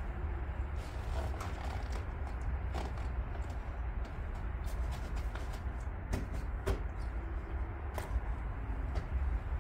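Handling noise from a rider climbing onto a parked motorcycle and settling on the seat: scattered clicks, rustles and light creaks from clothing, seat and strapped-on luggage, over a steady low rumble.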